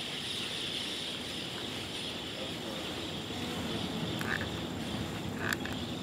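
Tropical outdoor ambience: a steady high-pitched chorus, like insects or frogs, over a low rumble of wind and surf. Two short, harsh squawks come through about four and five and a half seconds in, from the parrots in the trees.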